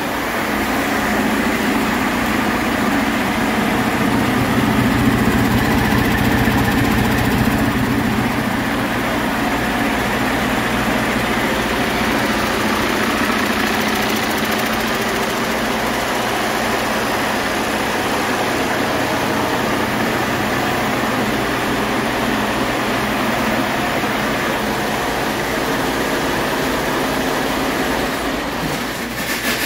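A used 2016 Detroit Diesel DD13 inline-six diesel engine running steadily on a test stand during its test run, a little louder about four to eight seconds in.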